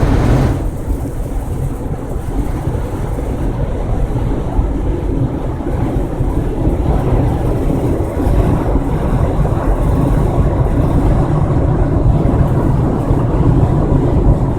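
Steady tyre and road noise of a vehicle at highway speed on the I-10, heard as a low, even rumble, the hiss above it dropping away about half a second in.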